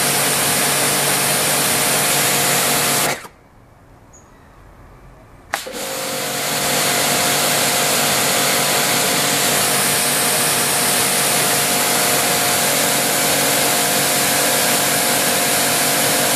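Karcher K5.55M pressure washer running, its electric motor and pump humming under the hiss of the water jet. About three seconds in, motor and spray cut out together, as happens when the gun's trigger is let go. Some two seconds later a sharp click, and the machine starts again and builds back to full pressure.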